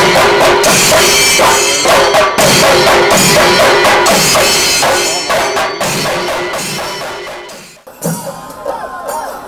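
An ensemble of chenda drums beaten with sticks in a fast, steady Puli Kali percussion rhythm. The drumming fades out near the end and quieter, different music takes over.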